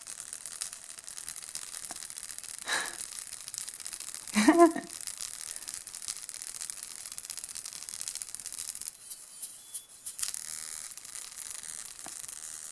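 Tiny earbud speaker driver being overdriven until it burns out: a steady high hissing buzz as it smokes, its voice coil come loose and flapping, thinning out briefly about nine seconds in. A short voice sound comes about four and a half seconds in.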